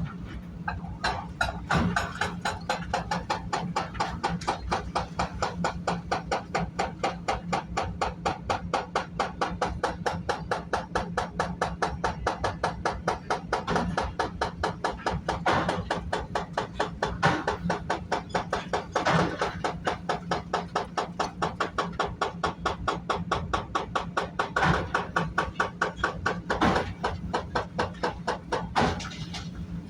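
Hydraulic breaker hammer on a CAT 330 excavator pounding concrete: a rapid, steady train of blows, several a second, over the excavator engine's steady drone. Several louder cracks stand out around the middle and near the end.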